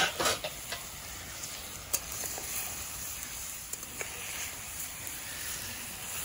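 Chicken and potato pieces sizzling steadily in a steel wok over a wood fire while being stirred, with a few sharp clicks, about two seconds in and again at four seconds.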